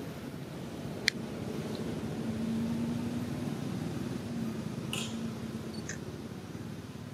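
Steady low background rumble with no clear source, a faint steady hum joining it for a few seconds in the middle. A sharp click about a second in and a couple of faint ticks later.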